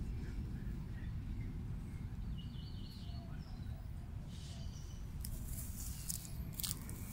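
Outdoor ambience: a steady low rumble with a few faint bird chirps in the middle.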